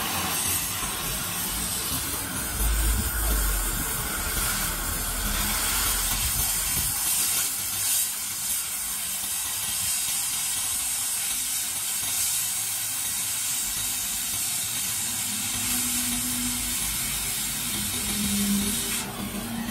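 Oxy-fuel cutting torch hissing steadily as its oxygen jet cuts through the thick steel of a truck chassis rail.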